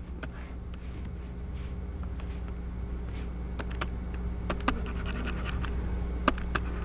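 Scattered light clicks and scratchy rubbing from a laptop being worked by hand, its keys and trackpad, over a steady low room hum.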